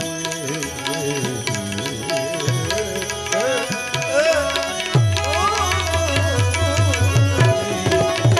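Gujarati bhajan accompaniment between sung lines: tabla playing under a melodic instrument's gliding phrases and a steady held note. The tabla's deep bass strokes come in strongly and regularly about halfway through.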